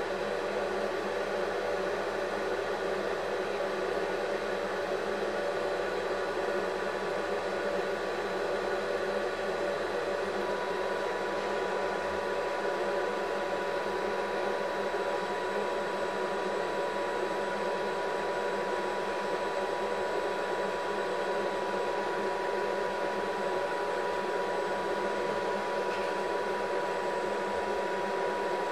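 Steady mechanical whirring hum with hiss, unchanging throughout, with a faint high steady tone that joins about ten seconds in.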